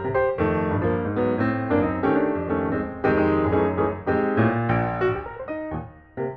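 Background piano music, a quick run of notes and chords, with a brief pause a little before the end.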